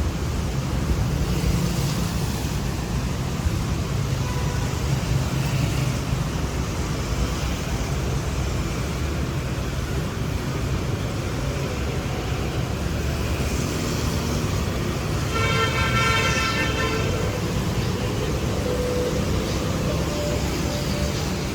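Steady street traffic noise with a low rumble, and a vehicle horn honking once for about a second and a half, around two-thirds of the way in.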